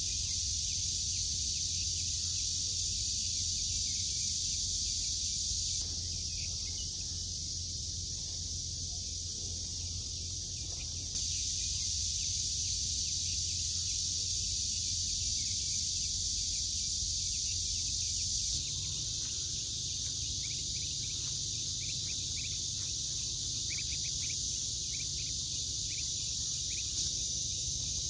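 Steady high-pitched chorus of insects such as crickets, with a low hum beneath. Its loudness steps up or down abruptly a few times.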